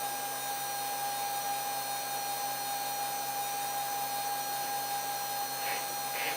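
Protomaker 3D printer running: a steady whine on one constant pitch over an even, fan-like hiss.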